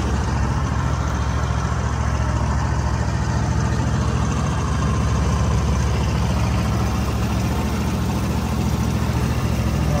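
Boat motor running steadily while the boat is under way, a low, even engine sound with no change in speed.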